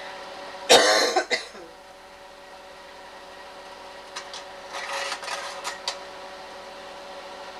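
A person coughs, short and loud, about a second in, over a faint steady hum. A few seconds later comes a short run of clicks and clatter as a slide projector changes slides.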